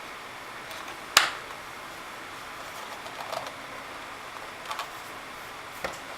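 Clicks and taps of a stick vacuum's plastic housing being handled and fitted together: one sharp click about a second in, then a few fainter ones, over a steady hiss.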